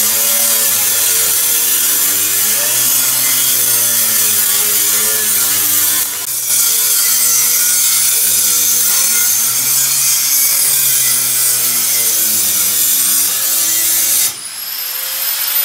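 Angle grinder with a cut-off disc cutting through a school bus's sheet-metal side panel, its motor whine wavering as the load changes. It eases off briefly about six seconds in, and near the end comes off the metal and its whine rises as it spins freely.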